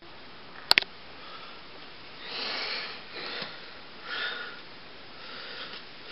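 A person breathing and sniffing close to the microphone in soft, separate swells, with a sharp double click about a second in.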